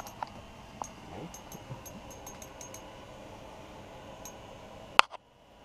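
Small spinning reel and ice rod being worked by hand, giving light, quick ticking, about five ticks a second for a couple of seconds, as a bluegill is reeled up. A single sharp click about five seconds in is the loudest sound.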